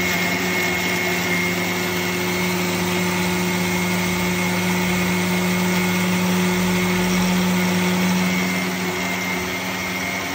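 Electric mixer grinder with a stainless-steel jar running steadily, grinding small onions, grated coconut and garlic into a coarse wet paste: a constant motor hum with a high whine over it.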